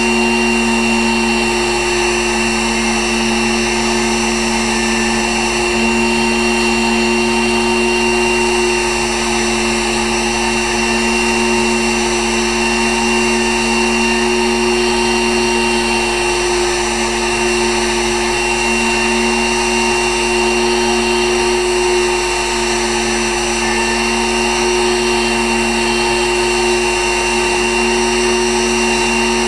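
Pantograph engraving machine's spindle motor running steadily while engraving, a constant hum with a high whine on top.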